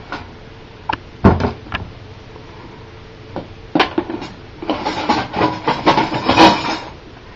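Knocks and clicks of a plastic toy Easy-Bake Oven and its baking pan being handled, with a loud knock about a second in and a run of rattling clatter from about five to seven seconds.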